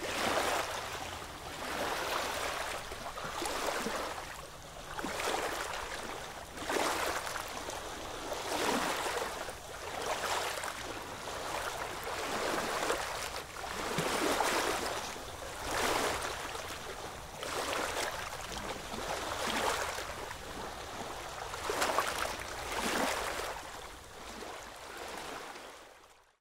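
Atlantic surf washing up a sandy beach, the wash swelling and ebbing about every two seconds. It fades out near the end.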